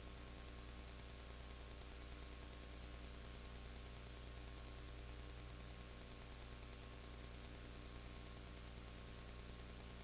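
Steady electrical hum with a stack of overtones under an even hiss, with no game or crowd sound: the noise floor of an old videotape recording.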